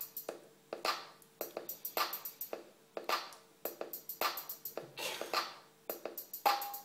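Programmed drum-kit loop playing back from the Renoise tracker: a steady pattern of bass-drum hits with hi-hat ticks in between.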